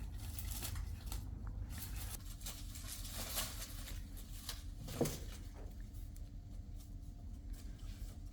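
Soft rustling and scratching sounds, with one sharp knock about five seconds in, over a steady low hum.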